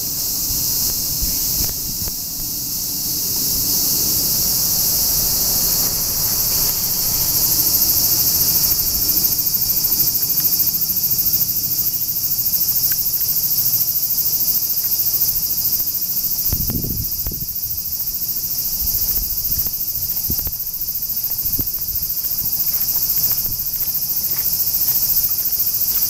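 Dense chorus of cicadas shrilling, a steady high hiss without pauses.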